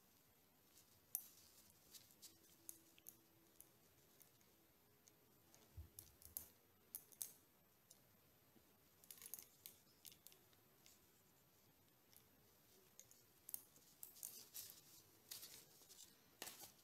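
Faint, scattered clicks and light taps from a stethoscope being handled and assembled, its metal ear tubes and rubber tubing fitted together by hand.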